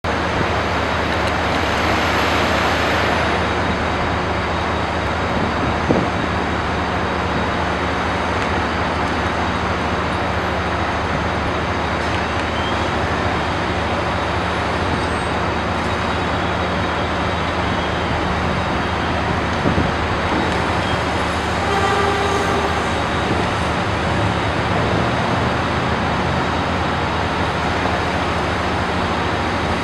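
Steady rumble of road traffic and city noise, with a short pitched horn note about two-thirds of the way through and a couple of small knocks.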